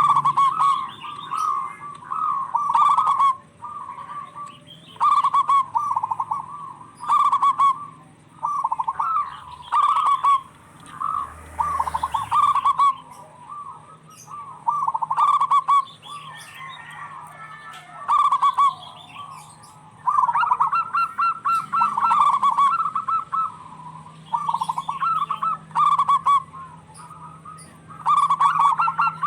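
Zebra doves calling back and forth, a string of short phrases of rapid rippling coos, each under a second long, one after another every second or two.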